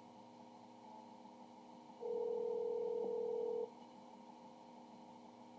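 A single telephone ringback tone from a Skype call played through computer speakers: one steady low beep starting about two seconds in and lasting about a second and a half, as the outgoing call rings the phone.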